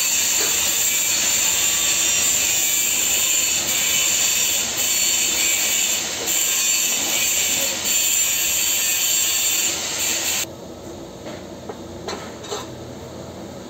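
Electric welding arc on a small steel pipe joint: a steady, loud hiss that cuts off suddenly about ten and a half seconds in as the arc is broken, followed by a few faint clicks.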